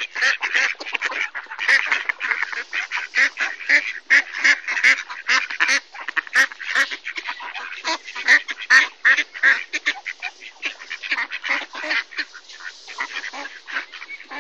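A flock of mallard ducks quacking, many short calls overlapping in a constant chatter that thins a little near the end.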